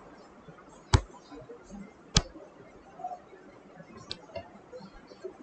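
Two sharp clicks a little over a second apart, then a few faint ticks, over a low background hiss: clicks from working a computer drawing program.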